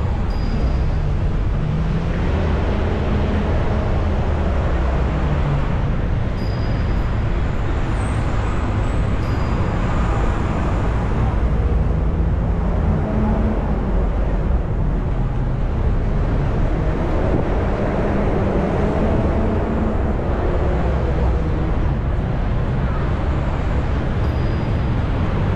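Steady city street traffic: cars, vans and buses running in the lanes alongside, a continuous low rumble, heard from a bicycle moving along the bike lane.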